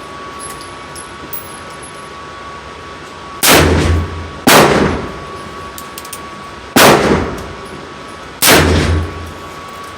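Four loud gunshots a second or more apart, including shots from a Mitchell Arms single-action revolver in .45 Colt firing lead soft-nose rounds. A faint steady tone runs underneath.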